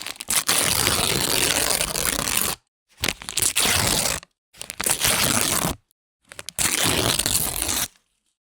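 Paper being ripped in four separate tears, the first the longest at about two and a half seconds, the others shorter, each a rough tearing rasp.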